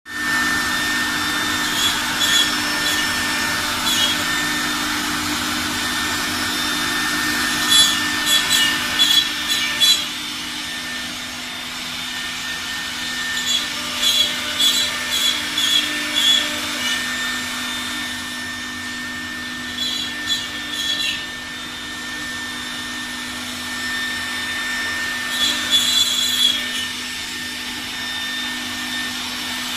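CNC wood router running: a steady machine whine, with clusters of sharp crackling every few seconds as the bit cuts wood.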